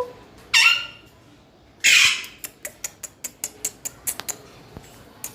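Pet green parrot giving two short harsh squawks, the second louder, followed by a run of quick, sharp clicks.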